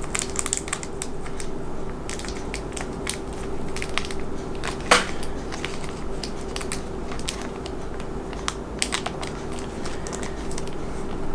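Scattered small clicks and taps of handling small model-kit parts and a tiny screw, with one sharper click about five seconds in, over a steady low hum.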